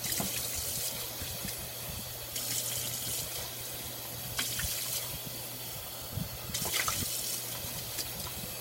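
Kitchen tap running into a sink as dishes are rinsed, the splashing swelling and easing, with a few light knocks.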